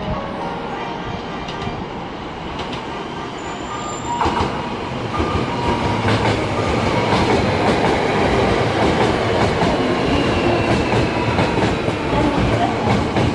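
Hankyu electric train passing at close range, its wheels clattering rhythmically over the rail joints of old jointed track. It grows louder about four seconds in, then clacks on steadily.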